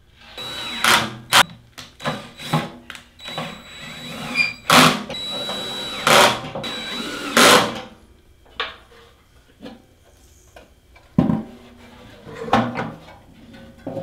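Cordless drill driving screws into a sheet-metal blower housing to mount its capacitor: a steady motor whine for several seconds, broken by loud metallic clunks. It stops about seven seconds in, and a few scattered knocks of the sheet-metal housing being handled follow.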